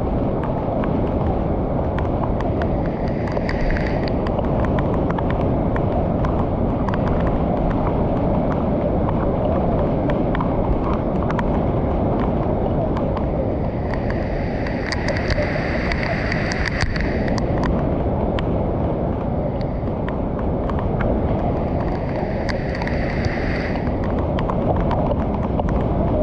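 Steady, loud rush of muddy floodwater pouring over a low weir and churning in the pool below. Three times, a few seconds in, in the middle and near the end, a higher-pitched sound rises briefly above the rush.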